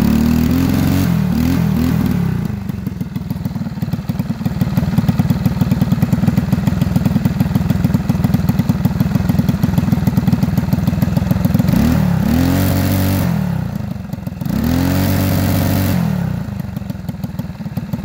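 Stock Predator 212cc single-cylinder four-stroke engine running steadily, revved up and let back down at the start and twice more about two-thirds through. The engine is being tuned because it runs rich.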